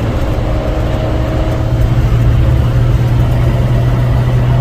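Hyundai Porter II's D4CB four-cylinder diesel engine running while the truck drives, a steady low drone with road noise, slightly louder about two seconds in.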